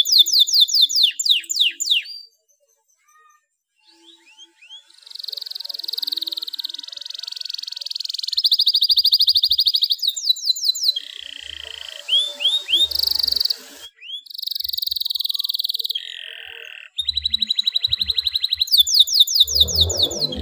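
Male domestic canary in breeding condition singing: phrases of rapidly repeated notes, high trills and quick falling sweeps, with a pause of about two seconds near the start.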